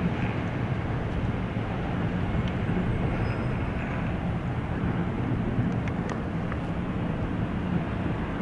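CN freight train of autorack and tank cars rolling steadily across a steel railway bridge: a continuous noise of wheels on rails with a low hum, and a few faint ticks about six seconds in.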